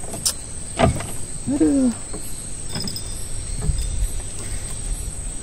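Night ambience of a steady high insect drone over a low rumble, with two sharp knocks in the first second and a short falling pitched sound about a second and a half in.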